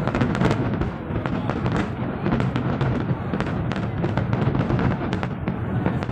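Fireworks display going off: a rapid, irregular run of sharp crackles and pops, many overlapping.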